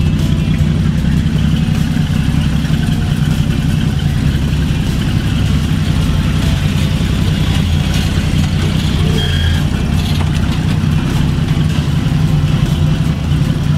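A 1973 Chevrolet C10 stepside pickup's engine running with a steady, low exhaust note as the truck pulls out of the driveway and drives off down the street.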